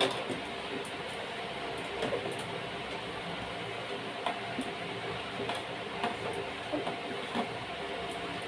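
Steady rushing noise with scattered light knocks and clicks from a refrigerator door being scrubbed and handled during cleaning.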